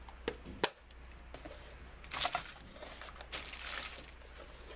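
Two sharp clicks in the first second, then packaging rustling and crinkling in two short bursts as items are handled.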